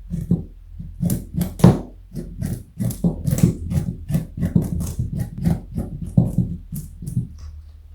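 A rabbit crunching a raw carrot in quick, crisp chews, about three a second. The crunching stops near the end.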